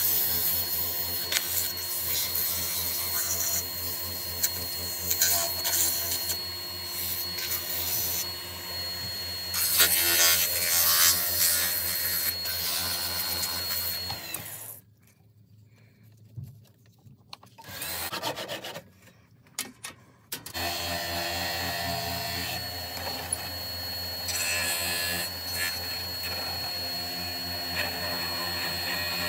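Wood lathe running with a steady motor hum and a thin high whine, while sandpaper rubs against the spinning wooden turning in hissy bursts. The sound drops almost to silence for about six seconds midway, then the lathe runs again and a hand-held turning tool scrapes at the spinning wood near the end.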